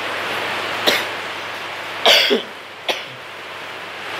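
A person coughing and clearing the throat: a short sharp cough about a second in, a louder throaty cough with falling pitch about two seconds in, and a brief last one near three seconds.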